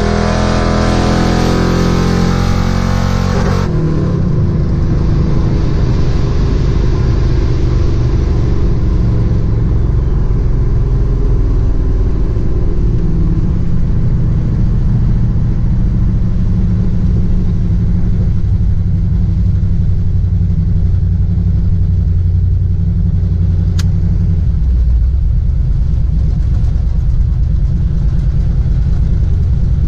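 Supercharged drag car engine at full throttle heard inside the cabin, cutting back sharply about three and a half seconds in as the throttle is lifted; then a steady low engine rumble as the car rolls on at light throttle.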